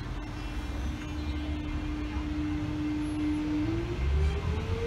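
X'Trapolis electric train accelerating: its traction motors give a steady electric whine that starts rising in pitch a little over halfway through as the train gathers speed, over a low running rumble.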